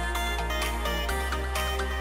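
Electronic background music with a steady beat over a sustained bass line.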